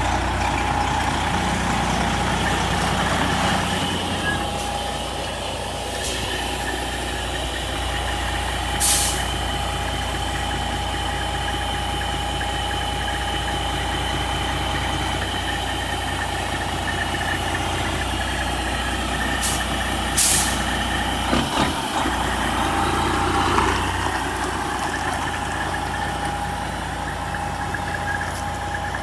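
Semi-truck tractor's diesel engine idling and pulling at low speed while it backs up, with a few short hisses of air from the air brakes.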